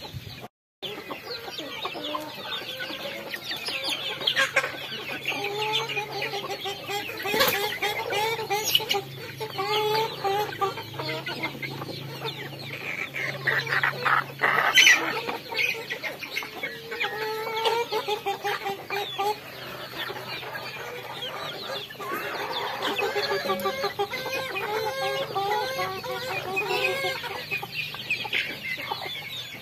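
A flock of chickens, hens, roosters and young birds, clucking and calling over and over as they feed, many voices overlapping, with scattered sharp pecking clicks. The sound cuts out for a moment just after the start.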